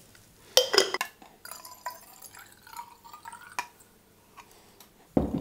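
A sharp glass knock, then liquid trickling and gurgling for about two seconds, followed by a few light clicks of glass bottles being handled on a table.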